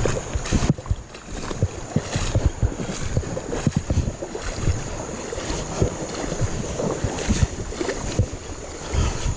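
Someone wading through a shallow rocky creek: water sloshing and splashing around the legs in an irregular run of steps, with wind buffeting the microphone.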